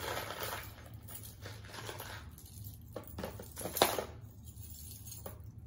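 Hands rummaging through a box of mixed costume jewelry. There is a soft rustle for the first couple of seconds, then a few sharp clicks and clinks of pieces knocking together, the loudest a little under four seconds in.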